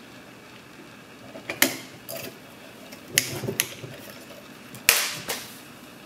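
A Sargent & Greenleaf mailbox lever lock being worked with a pick and tension tool makes sharp metallic clicks. They come in three pairs, the last pair the loudest.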